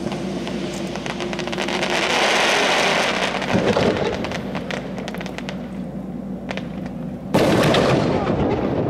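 Aerial fireworks going off: dense crackling from bursting shells for the first several seconds, thinning out, then a sudden loud boom about seven seconds in.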